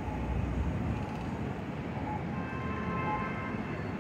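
Traffic noise at a city intersection: cars passing with a steady low rumble. A pitched tone holds for about a second past the middle, and faint short beeps repeat roughly once a second.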